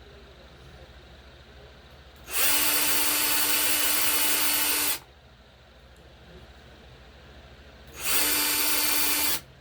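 Power drill running in two steady bursts, the first about two and a half seconds and the second about a second and a half, each starting and stopping abruptly. It is drilling out the plastic of a diecast toy car.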